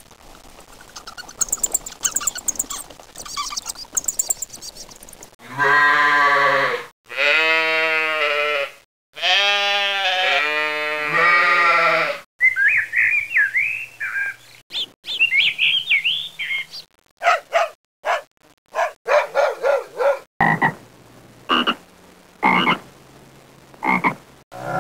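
A run of different animal calls played one after another: faint high chirping at first, then three long calls with a clear pitch, then high chirps, and short quick repeated calls near the end.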